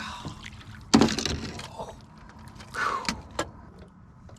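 A sudden hard knock with a brief rattle about a second in, as the landing net and gear bang against the boat while a trout that has leapt out of the net is scrambled for; a few faint clicks follow.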